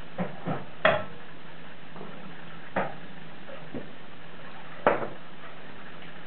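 About six sharp clicks and taps at irregular times, the loudest about a second in and near five seconds, over a steady low hum.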